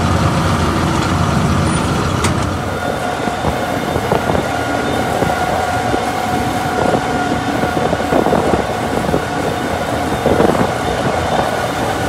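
Heavy vehicle driving on the road: steady engine and road noise with a constant whine.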